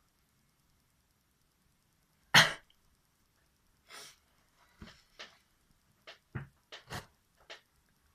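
A person sneezes once, loudly and suddenly, a little over two seconds in. A softer breath and a string of short, quieter snuffling sounds follow over the next few seconds.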